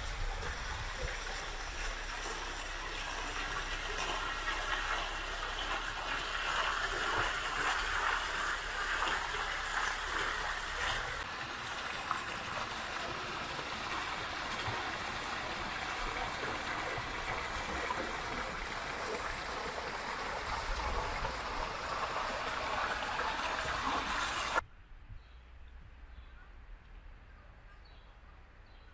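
Fountain jets splashing into a shallow basin: a steady rush of falling water. It cuts off abruptly about 25 seconds in, and a much quieter outdoor background follows.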